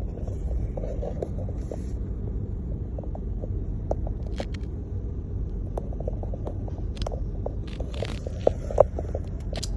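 Low, steady rumble of vehicle and road noise, with scattered light clicks and knocks from about the middle on.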